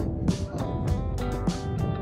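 Background music: a track with sustained chords and a steady drum beat.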